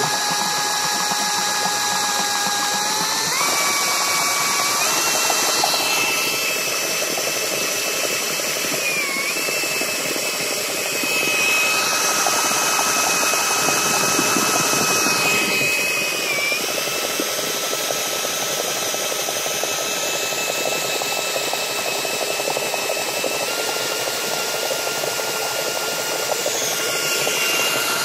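An 18-volt cordless drill driving a homemade boat propeller, its motor whining steadily under load, over the rushing noise of churned water. The pitch steps up twice in the first few seconds and dips briefly a couple of times later on.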